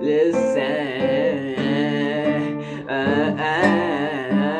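Singing voice holding and bending drawn-out notes with a wavering pitch, over held acoustic guitar chords.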